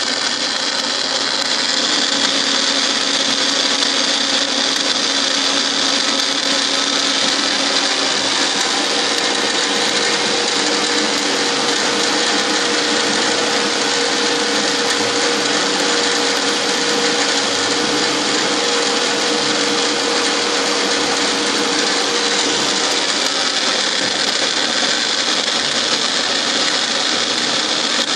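Milling machine running steadily, its end mill cutting a helical worm thread into a steel blank that is fed by hand through a dividing head. A steady tone joins the whine about nine seconds in and drops out about twenty-three seconds in.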